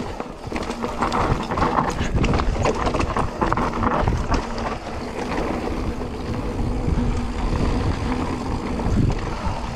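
Mountain bike riding fast down a loose dirt and stone trail: tyres rumbling and crunching over gravel, with many short rattles and knocks from the bike.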